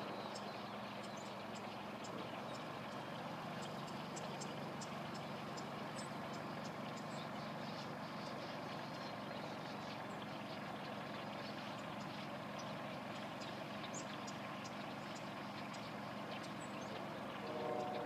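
A large flock of blackbirds calling all at once: a steady din of massed chatter, pricked with many sharp high chips, over a low steady hum.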